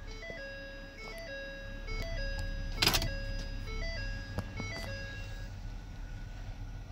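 A jingle-like tune of short stepped electronic notes plays until about five and a half seconds in, with a brief sharp noise about three seconds in. Underneath runs the low, steady idle of the 2011 Ford F-250's 6.2 L V8.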